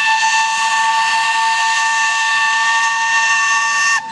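Narrow-gauge steam locomotive's whistle blowing one long, steady blast, several notes together over a breathy hiss, cutting off sharply near the end.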